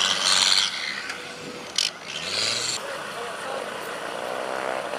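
Off-road race vehicle engine revving hard under load in two bursts, with a sharp knock between them; after about three seconds, people's voices take over.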